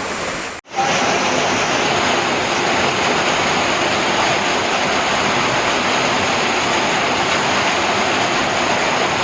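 Loud, steady rush of heavy monsoon water, a dense even roar of rain and running water. It cuts out for an instant just over half a second in, then resumes slightly louder.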